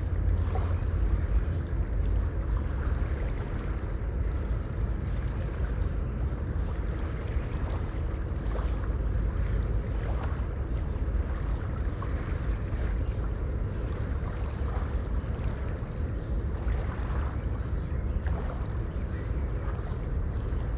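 River water flowing: a steady rushing of water with a strong deep rumble underneath and small splashes here and there.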